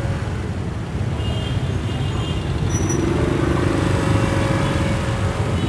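Congested road traffic: a steady rumble of vehicle engines, with an engine hum coming in about three seconds in.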